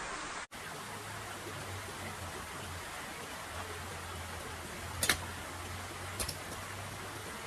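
Steady outdoor hiss, broken by a brief dropout about half a second in. Two sharp snaps come about five and six seconds in.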